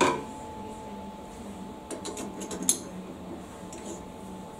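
A sharp metal clank with a ringing tone right at the start, then a quick run of light metallic clicks and taps about two seconds in, over a low steady hum. It is metal being handled inside a CNC lathe's enclosure.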